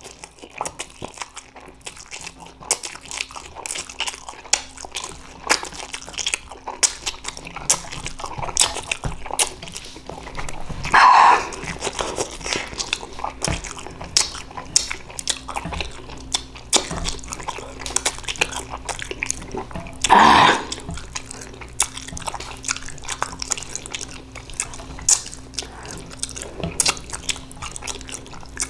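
Close-miked noodle eating: chopsticks clicking and ramen noodles being twirled and chewed, with many small wet clicks and ticks. Two louder sounds, each about a second long, come near the middle and about two-thirds of the way through.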